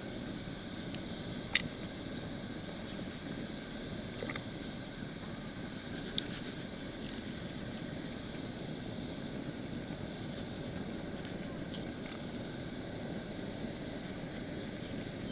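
Steady hiss and low rush of a bottled-gas camp stove burner heating a pot of stew, with a few sharp clicks, the loudest about one and a half seconds in.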